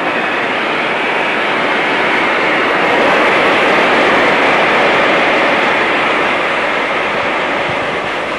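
Twin-wire electric arc metal spray gun running, with a steady, loud rushing noise as it sprays molten metal. It grows a little louder a few seconds in.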